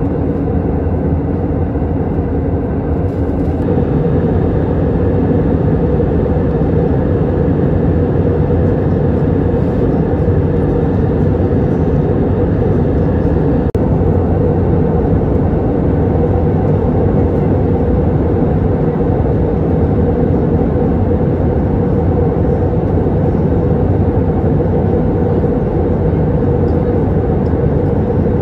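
Steady cabin roar of an Airbus A320neo in flight, from its CFM LEAP-1A turbofans and the airflow, heard at a window seat over the wing. It has a low hum and gets slightly louder about three to four seconds in.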